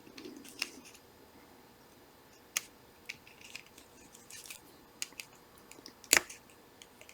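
Small screwdriver tip clicking and scraping against the metal circlip and parts of a Shimano 105 road-bike shifter mechanism while prying at the clip: scattered light ticks, with sharper clicks about two and a half seconds in and a louder one about six seconds in.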